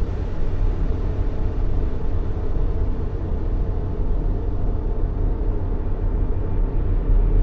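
Steady sleep-noise track: an even, deep rushing noise, heaviest in the bass like a low rumble, with no change in level.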